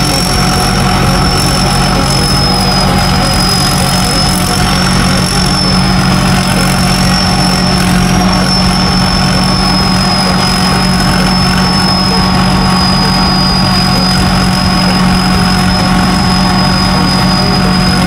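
A large engine running steadily at one constant speed, with a thin high whine held over it.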